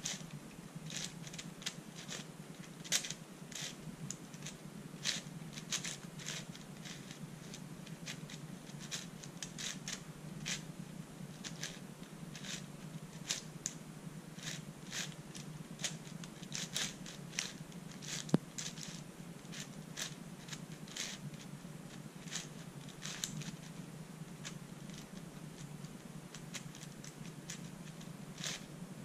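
Plastic layers of a 4x6x8 shapeshifting cuboid puzzle, built from an MFJS Meilong 8x8 with 3D-printed extensions, clicking and clacking as they are turned quickly and irregularly during a scramble.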